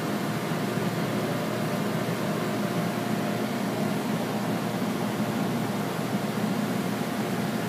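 Steady mechanical hum and hiss with a faint constant whine, unchanging throughout.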